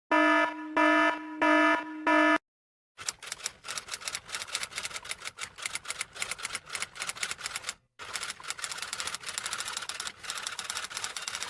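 Four short buzzer-like electronic beeps in quick succession, then, after a brief silence, a long run of rapid typewriter key clacking with one short pause partway through.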